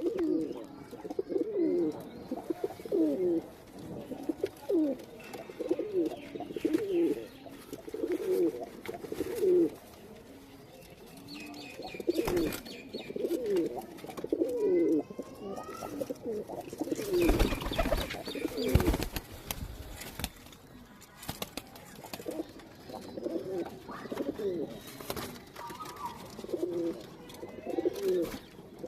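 Teddy pigeons cooing over and over in short repeated low phrases. A brief burst of rustling noise comes around the middle.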